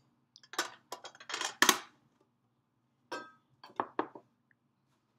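Metal tea stacking tins and their lids clinking and knocking together as they are handled, with a clatter peaking a little under two seconds in and a second, lighter one about three to four seconds in.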